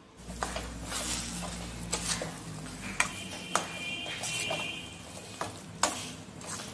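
Steel spoon stirring and scraping thick mashed eggplant in a stainless-steel pot, with repeated clinks and knocks of the spoon against the pot's sides.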